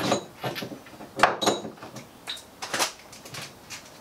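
Clatter and sharp knocks of tools and objects being picked up and set down on a wooden workbench, several separate knocks with the loudest about a second in.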